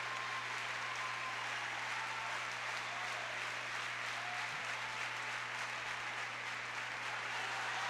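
A large theatre audience applauding, a steady, sustained ovation.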